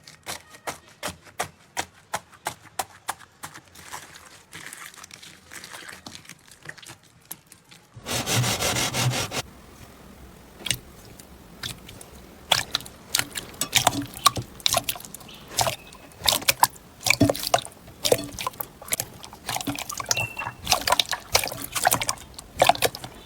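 Slime being squeezed, poked and stretched by hand, giving many small irregular crackling clicks and pops. About eight seconds in the sound changes abruptly to a louder, denser squelching stretch before the scattered pops return.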